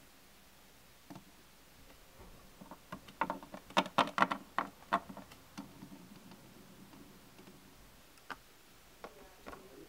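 Small plastic toy figures, a toy basket and a toy cart being handled and set down on a wooden tabletop: light clicks and taps in a quick cluster around four seconds in, with a few single ticks later.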